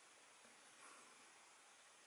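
Near silence: faint room-tone hiss.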